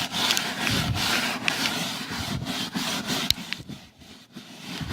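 Scrub brush scrubbing the sidewall of a Goodyear Tracker HP ATV tire, wet with spray-on tire cleaner, in repeated rubbing strokes with a brief pause near the end.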